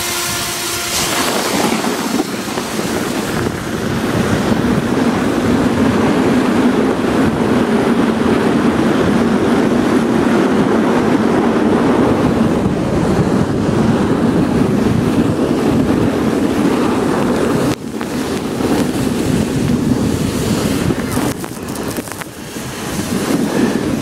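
An inner tube sliding fast down a tubing lane: a steady rush of wind on the microphone over the hiss and scrape of the tube on the track, dipping for a moment about three quarters of the way through.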